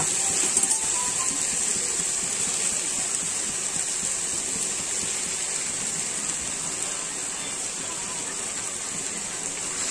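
Steady sizzle of chopped onion, tomato and green chilli frying in oil in a pan, with shredded parotta just added. The sizzle eases slightly over the seconds.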